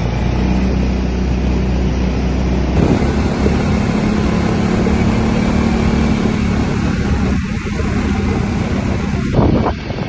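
Quad bike (ATV) engine running on the move: a steady low hum for the first few seconds, then, from about three seconds in, a rougher and noisier ride sound with rushing wind, and a brief loud knock near the end.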